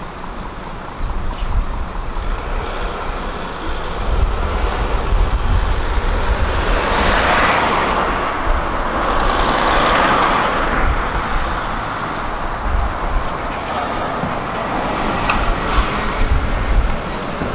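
Road traffic on a multi-lane city street: cars and a van driving past, the passes loudest about seven and ten seconds in, with a tram approaching near the end.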